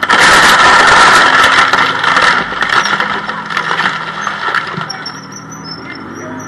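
Armoured personnel carrier on the move: a dense engine and track clatter that comes in suddenly and loud, then fades over about five seconds.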